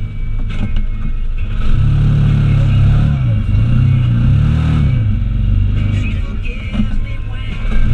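Off-road vehicle engine running steadily, revved up and down several times in quick succession about two to five seconds in.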